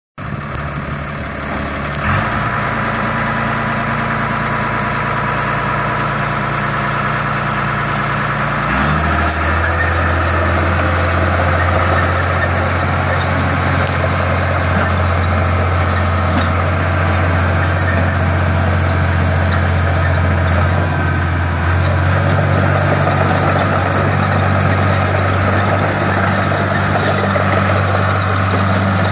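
Caterpillar D3C XL Hystat crawler dozer's six-cylinder Cat 3046 diesel engine running steadily as the machine travels and turns. The engine note steps up about nine seconds in and shifts again a little past twenty seconds.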